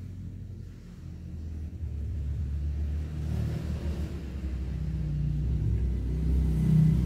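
Low rumble of a motor vehicle's engine off-screen, growing louder from about two seconds in and peaking near the end.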